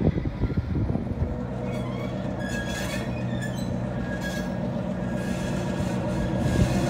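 NOHAB MY-class diesel-electric locomotive running with a steady low engine hum as it rolls slowly through a yard, after about a second of clatter. A few short high squeals come from the wheels.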